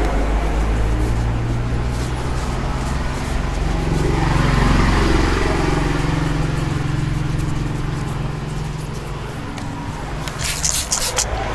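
Road traffic: a motor vehicle's engine rumbles past, swelling about four to five seconds in and then fading. Near the end, a quick run of hand rubs and pats on skin.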